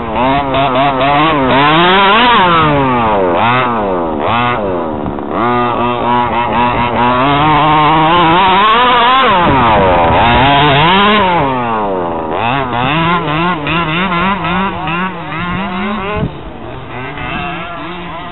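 Small two-stroke engine of a gas-powered 1/5-scale RC buggy revving up and down again and again as it is driven, its pitch rising and falling with the throttle. It drops quieter about sixteen seconds in.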